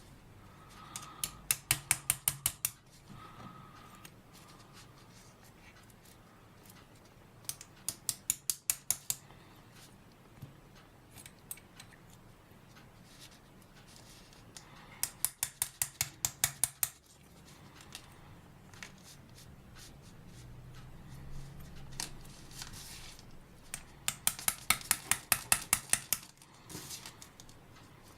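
Four runs of quick, light metallic taps, several a second, driving a stainless bearing out of a brushless motor's aluminium back plate, tapped a little at a time around the bearing to work it out square.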